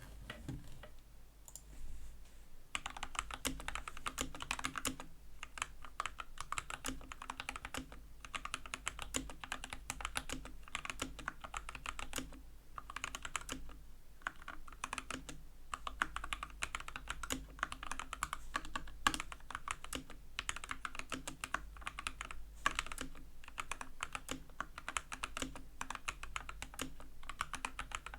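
Fast typing on an Epomaker/Skyloong AK84S mechanical keyboard with lubed Gateron Red linear switches and stock keycaps: rapid key clacks in runs with brief pauses, picking up in earnest about three seconds in.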